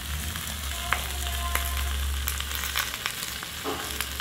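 Charcoal-grilled bone-in pork belly sizzling and crackling on a hot stone plate over sliced onions, with a low hum under it for the first few seconds.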